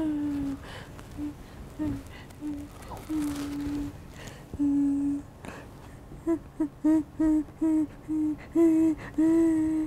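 A woman humming with closed lips, a string of held notes at nearly one pitch that turns into quick, short notes from about six seconds in.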